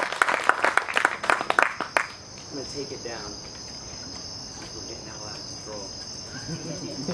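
Audience applause that stops about two seconds in, leaving a steady high chirring of night insects with faint voices underneath.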